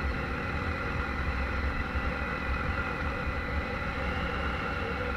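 Harley-Davidson Street 500's V-twin engine running steadily, heard through a chin-mounted helmet camera, with a deep, even drone.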